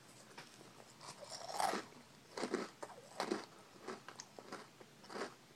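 Dry Pumpkin Spice Cheerios crunching as a person bites into and chews a mouthful without milk: one louder crunch about one and a half seconds in, then regular crunching chews a little more than once a second.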